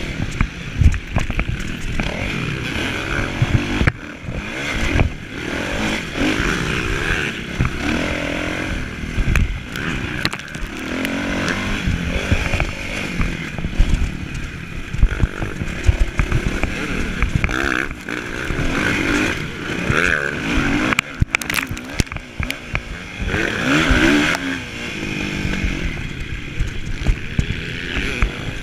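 Motocross bike engines running throughout, with the engine note rising and falling as they rev.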